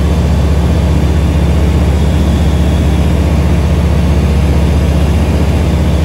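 Aquila A210 light aircraft in level cruise, heard from inside the cockpit: its Rotax 912 four-cylinder engine and propeller make a loud, steady low drone.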